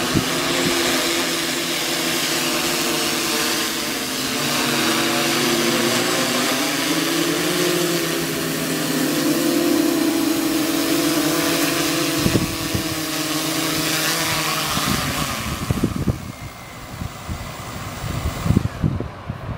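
Quadcopter drone's electric motors and propellers whining in flight, several tones drifting slowly in pitch. Near the end the sound drops quieter and a few knocks follow.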